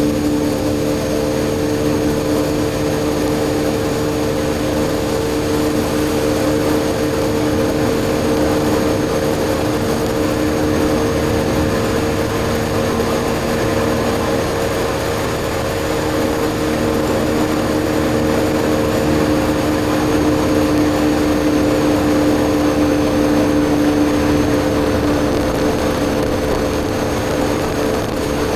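BMW R1250GS Adventure's boxer twin through an Akrapovic slip-on exhaust, cruising at a steady speed with an even drone, over a steady rush of wind and road noise.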